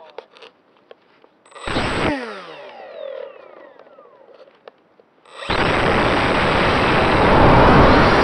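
Electric motor and propeller of an Eachine Micro Skysurfer RC plane, heard close up through its onboard camera: a short throttle blip about two seconds in that winds down with a falling whine, then about five seconds in the motor goes to full throttle and runs steadily and loud. A few small clicks of handling come before.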